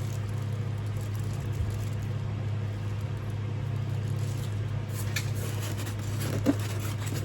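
A steady low electrical or mechanical hum, with faint rustling and light clicks of parts being handled in the second half, one sharper click about six and a half seconds in.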